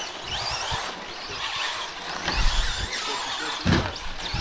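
Brushless electric motors of RC short-course trucks whining under throttle, several high whines rising and falling in pitch and overlapping, with two low thumps near the end.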